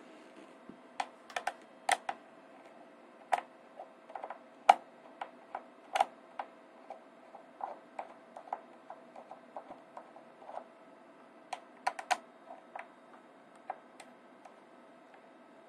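Irregular light clicks and taps of hard plastic being handled, some in quick clusters, as the Intel NUC mini PC is turned over and readied for opening. A faint steady hum runs underneath.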